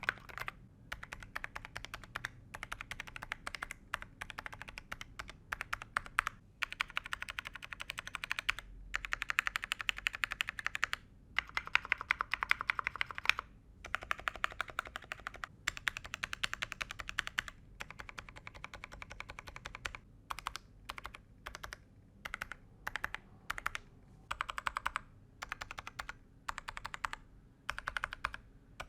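Typing on a Monsgeek M2 mechanical keyboard fitted with Akko Haze Pink silent switches and double-shot ABS cherry-profile keycaps: quick runs of muted keystrokes broken by short pauses.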